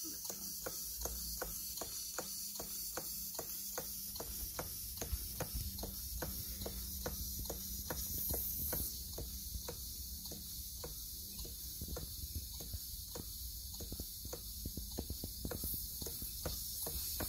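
Holzapfel Victoria-style live steam model mill engine (1-inch bore, 2-inch stroke) running steadily, its exhaust beating evenly at about four beats a second over a steady high hiss.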